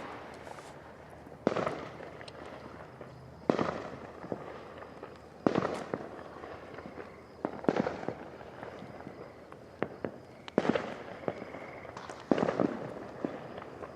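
Fireworks going off: six loud bangs about every two seconds, each fading quickly, with smaller sharp pops in between.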